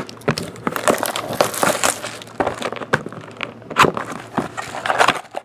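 Plastic shrink wrap being torn and crumpled off a sealed hockey card box: an irregular run of crinkling and crackling.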